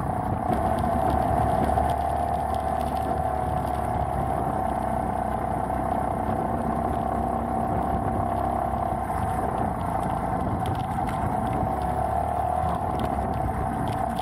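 Beta Alp trail motorcycle's single-cylinder four-stroke engine running steadily under load as the bike climbs a rough lane.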